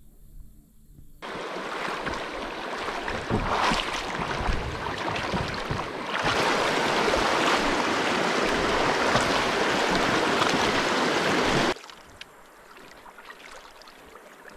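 River water rushing, a loud, even hiss that starts abruptly, gets louder about six seconds in and cuts off abruptly, leaving a quieter flow.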